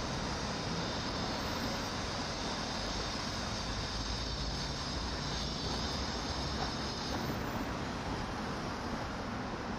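Steady city street traffic: a low rumble and hiss of passing vehicles, with a higher hiss that stops about seven seconds in.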